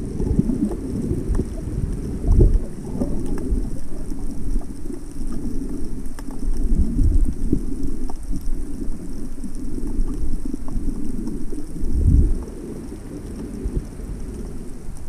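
Muffled underwater rumble and sloshing of seawater against an underwater camera's housing, dull and bass-heavy, with scattered faint clicks. Heavier low thumps come about two seconds in and again near twelve seconds.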